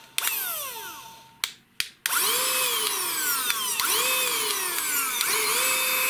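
Small electric motor of a handheld cordless car vacuum cleaner whirring. It starts and winds down, two clicks follow, and from about two seconds in it runs steadily with its whine swooping up and down in pitch.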